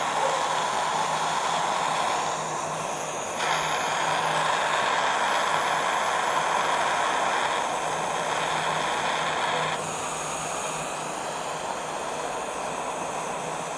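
Miniature refillable gas welding torch, filled like a lighter, burning with a steady hissing jet flame. The hiss dips briefly about two to three seconds in and gets a little quieter about ten seconds in.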